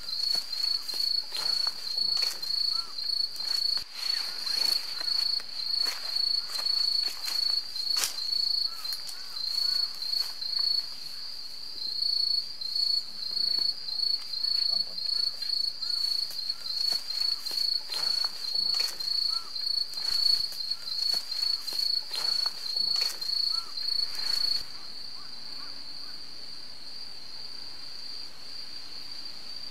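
Insects chirping in a high, rapid pulsing rhythm, with scattered light rustles and ticks. Near the end the pulsing gives way to a steady, unbroken trill.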